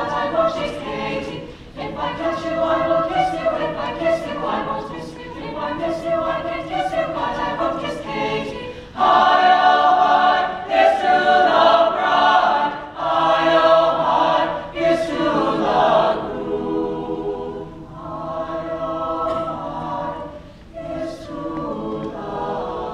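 Mixed choir of male and female voices singing, swelling louder from about nine seconds in until about sixteen seconds, then dropping back to a softer passage.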